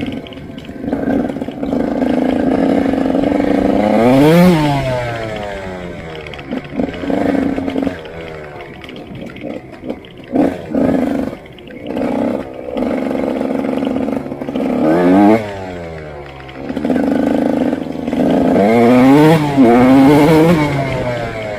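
Motorcycle engine heard on board while riding, running steadily and then revving up and dropping back in pitch several times, about four seconds in, around fifteen seconds and again near the end.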